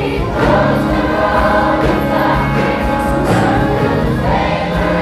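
Mass choir singing a gospel song with live band backing of keyboard and drums.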